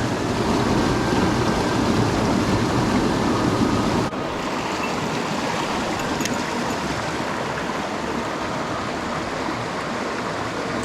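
Rushing mountain headwater stream: a steady, even wash of flowing water. About four seconds in it drops abruptly to a slightly quieter, thinner rush.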